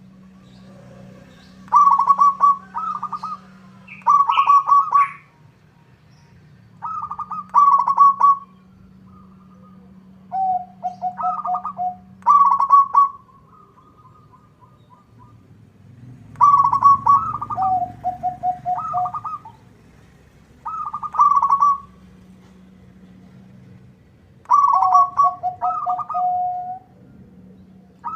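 Zebra dove (perkutut) singing: about eight cooing phrases, each a few quick coos followed in several phrases by a lower rolling trill, separated by pauses of one to three seconds. A faint steady low hum lies underneath.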